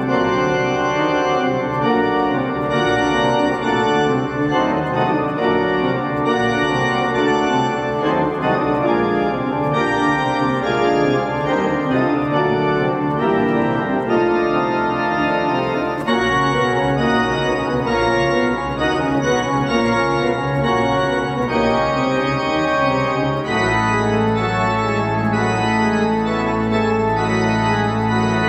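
Church organ playing, with many notes sustained together and moving over each other on the manuals. Near the end a deep bass note comes in and is held beneath the music.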